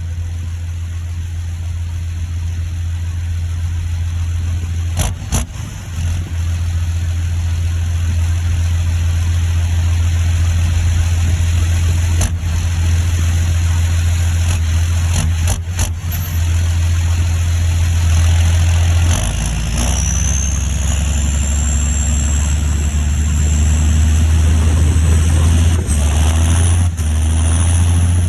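John Deere 7530 Premium tractor's six-cylinder turbo diesel running steadily under way, with a few short knocks in the first half. From about twenty seconds in, a high turbo whistle rises steadily in pitch as the engine pulls.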